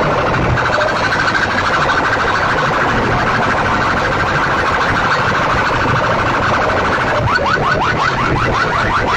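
Horn-loudspeaker stacks of a DJ sound system blasting an electronic siren effect. A loud, fluttering alarm-like tone turns about seven seconds in into rapid rising sweeps, about five a second.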